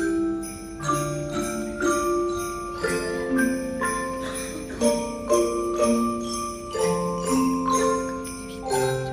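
Handbells playing a carol melody: bells struck about twice a second, each note ringing on and overlapping the next.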